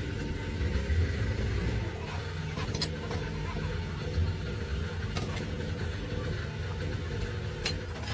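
An engine running at a steady idle, with three or four short sharp clicks or taps over it.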